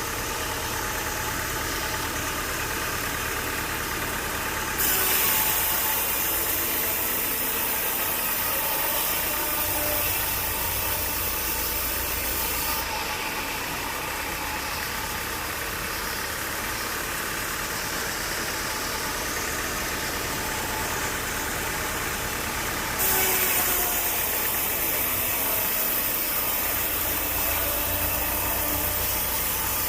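Sawmill machinery running steadily with an engine-like hum. A loud hissing noise high up comes in abruptly about five seconds in, eases off around thirteen seconds, and cuts back in sharply near twenty-three seconds.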